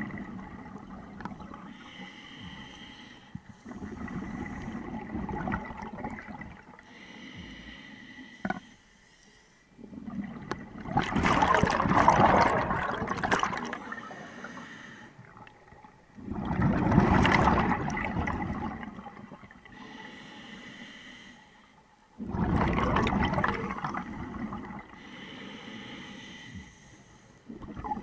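A scuba diver breathing through a regulator underwater: each inhale is a hiss with a faint whistling tone, each exhale a loud rush and gurgle of bubbles. The exhales grow louder in the second half, three big bubble bursts about every five to six seconds.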